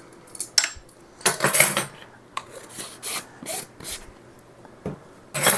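Metal measuring spoons and a knife clinking and scraping against each other and the kitchenware: a string of short clinks, with a louder clatter near the end.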